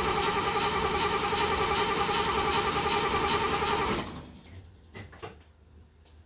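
The starter cranking the Mercedes-Benz 280 SEL 4.5's V8 with a fast, even rhythm, without the engine catching, then stopping about four seconds in. It cranks but does not fire on a newly fitted fuel pump, and the owner wonders whether fuel is getting up to the front.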